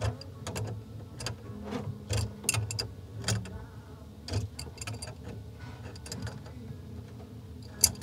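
Adjustable wrench tightening the brass nut of a braided steel water supply line in short strokes, clicking and ticking irregularly a few times a second, with one sharper click near the end.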